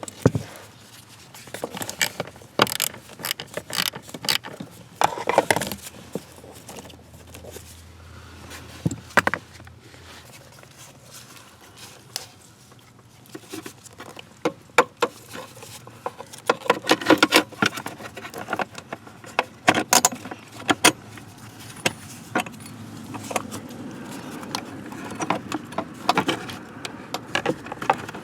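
Irregular clicks and light metallic clatter of hand tools and parts being handled, with a faint steady hiss coming up in the last few seconds.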